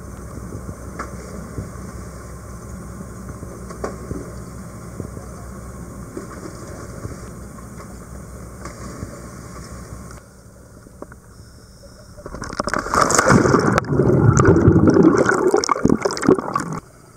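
A steady low rumble on a dive boat's deck, then about twelve seconds in the sound goes underwater: a loud rush of churning water and bubbles as a scuba diver plunges into the sea. It cuts off sharply near the end.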